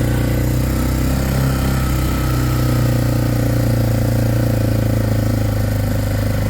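Four-wheeler (ATV) engine running steadily, with a brief waver in pitch about two seconds in.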